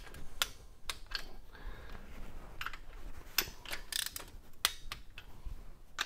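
Torque wrench with an extension and socket working the manifold nuts on a Ford Model A engine: scattered metallic clicks and ratchet ticks at uneven intervals, on the first torquing pass to 25 foot-pounds.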